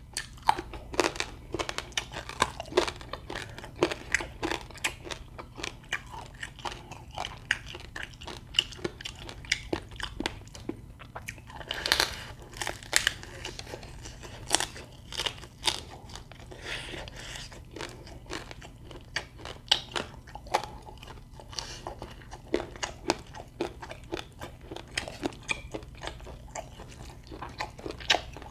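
A person chewing and crunching quail meat and its small, soft bones close to the microphone, with irregular crunches and bites throughout.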